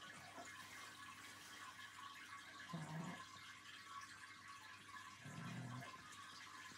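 Sleeping pug snoring faintly: two short, low snores about two and a half seconds apart, over a steady faint hiss.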